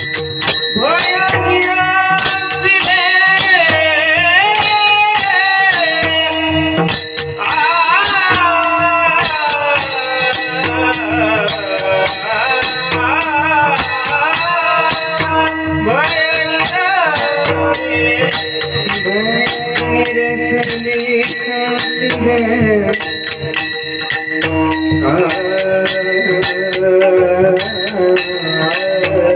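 Marathi Warkari kirtan singing: a gliding, ornamented devotional melody sung over a steady drone, with mridang drumming and metal hand cymbals (taal) ringing in an even rhythm.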